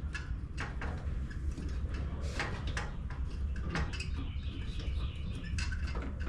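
Scattered light clicks and knocks of hand work on a riding mower's deck fittings, over a steady low hum.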